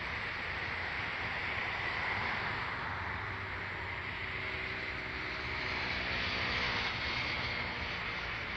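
Steady running noise heard from inside a moving train: a low rumble with a rushing hiss, and a faint hum joining in partway through.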